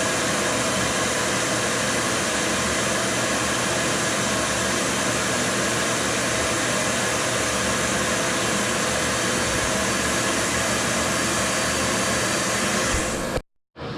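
Shop vac running steadily with a loud, even rushing hiss and a faint steady whine. Shortly before the end the sound cuts out for about half a second, then comes back quieter and builds up again.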